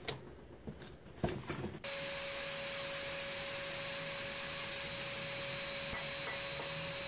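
Shop vacuum switched on about two seconds in and running steadily with an even whine, its hose fitted to the end of a hollow aluminium blower rotor. Before it starts, a few light knocks as the rotor is handled on the steel bench.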